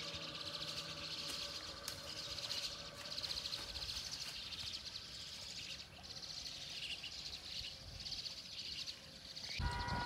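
A steady high-pitched trilling of insects over a rural outdoor background. Near the end a brief tone with several steady pitches and a low rumble come in.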